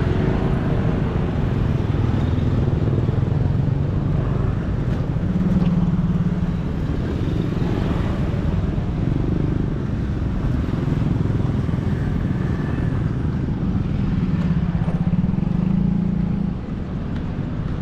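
Steady engine noise of motor traffic, mainly motorcycles, with a low hum that swells twice. It drops a little near the end.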